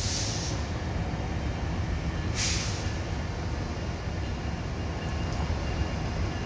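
Metrolink commuter train pulling out: the diesel locomotive's engine runs with a steady low rumble as it passes and moves away. There are two short hisses, one right at the start and one about two and a half seconds in.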